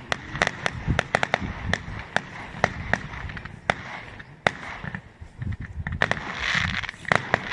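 Fireworks going off: a rapid, irregular string of sharp bangs and cracks over a low rumble, with a denser hissing crackle near the end.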